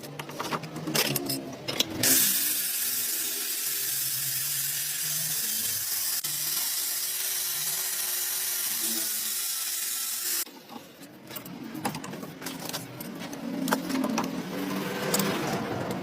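A small electric power tool's motor whirring with clicks and rattles, broken by a steady hiss that starts about two seconds in and stops suddenly about eight seconds later.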